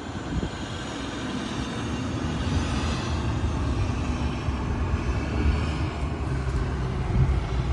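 Distant jet airliner, a COMAC C919 with twin turbofan engines, rumbling steadily as it flies past, slowly growing louder, over a wash of low wind and city noise.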